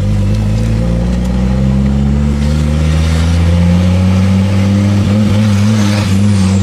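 Ford Focus XR5 Turbo's turbocharged five-cylinder engine running, its pitch rising gently then wavering, with a loud exhaust leak. The exhaust has come loose from the turbo with its bolts missing, so the exhaust note comes from the front of the car.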